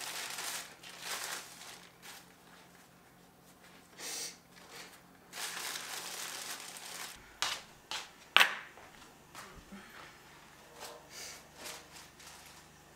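Plastic bread bag crinkling in bursts as hamburger buns are pulled out of it, with two sharp taps about a second apart midway through.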